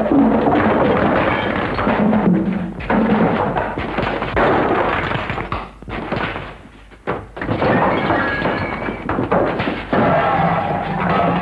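Dramatic film-score music over a run of heavy thumps, thuds and knocks, the sounds of a scuffle breaking out. There is a brief lull about seven seconds in.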